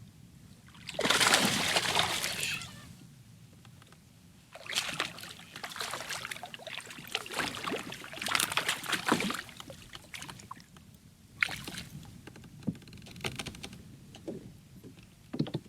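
Water sloshing and splashing around a kayak, with small knocks and handling noises from the boat. A loud rush of noise comes about a second in, then a stretch of uneven crackling and a few sharp clicks near the end.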